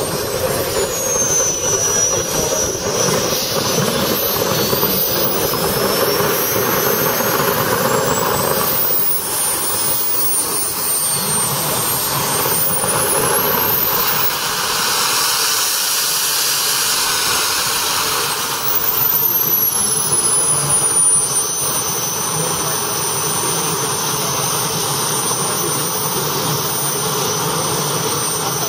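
ATJ160SV model gas turbine running with a loud, continuous whistling whine that rises and falls in pitch several times as it spools up and down, then holds a steady high whine through the last third.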